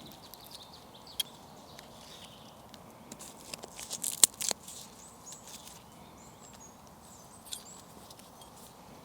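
Fire steel (ferrocerium rod) scraped to throw sparks: a quick run of sharp, high-pitched scrapes about four seconds in, with scattered clicks of handling before and after.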